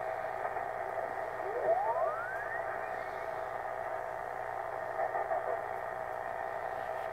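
Receiver audio from a Yaesu FT-450D HF transceiver being tuned across the top of the 80-metre band in lower sideband: steady band-noise hiss, with a whistling tone rising in pitch about a second and a half in as the dial sweeps past a signal.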